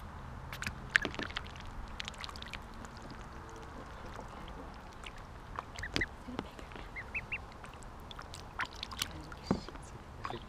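Ducklings paddling and dabbling in a shallow tub of water: scattered small splashes and bill clicks, with a few short high peeps about seven seconds in.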